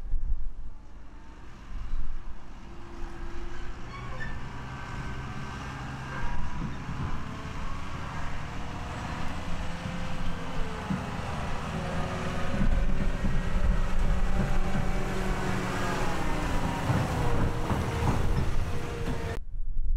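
New Holland T7 tractor's diesel engine running as it tows a Bailey grain trailer past, with a whine that drifts up and down in pitch, growing louder about two thirds of the way through as it draws near.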